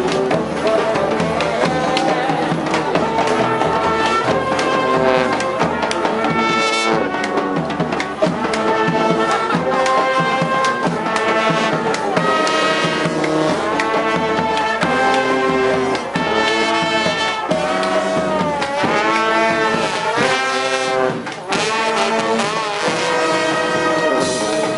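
Street brass band playing, trombones and trumpets carrying the tune over drums, with sliding, bending horn notes in places.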